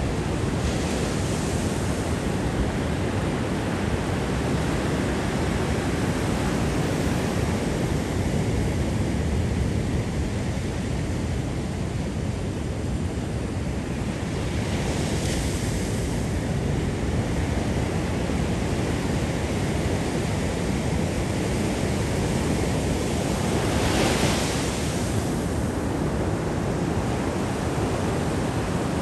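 Ocean surf breaking and washing on a beach, a steady rush with wind on the microphone. Louder wave crashes come about a second in, around the middle, and strongest a few seconds before the end.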